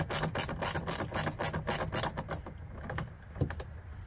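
Ratchet wrench clicking rapidly as the nut on a battery's positive terminal is backed off. The clicking stops a little over two seconds in, followed by a few separate clicks and knocks.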